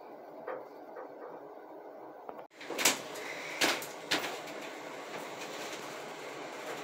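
Steady hum inside a moving elevator cabin, with a few sharp knocks and clicks about three to four seconds in.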